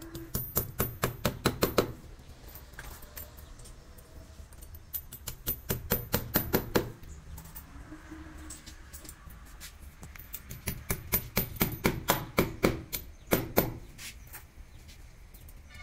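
Quick hammer taps driving plastic wall plugs into drilled holes in a masonry wall, in three runs of rapid strikes, about seven a second.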